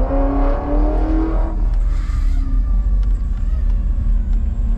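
The V8 engine of a 1991 Pontiac Firebird Trans Am WS6 race car idling with a steady low rumble, heard from inside the cabin. A brief run of pitched, note-like tones sits over it during the first second and a half.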